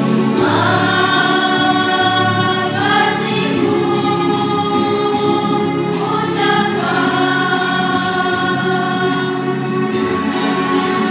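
Children's school choir singing long held notes in unison over a steady instrumental accompaniment, moving to a new note about every three seconds.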